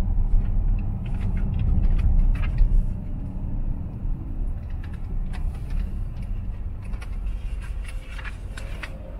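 Cabin noise inside a moving L405 Range Rover: a steady low road and engine rumble that gets quieter from about three seconds in, with scattered light clicks and taps from inside the car.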